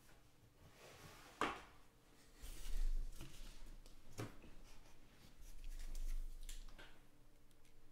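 Trading cards being handled and set down on a tabletop, with two sharp taps, one about a second and a half in and one about four seconds in. Dull low thumps come in between.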